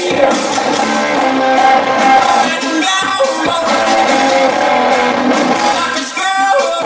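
Live industrial rock band playing loud, with electric guitar and a male singer singing into a microphone, as recorded from the audience.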